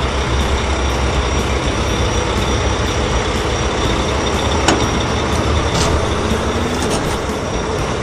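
Heavy truck engine running steadily with a deep rumble, and a few short sharp clicks a little past the middle.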